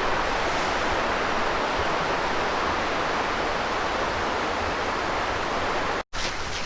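Steady, even rush of a mountain stream flowing over rocks, cut off abruptly about six seconds in.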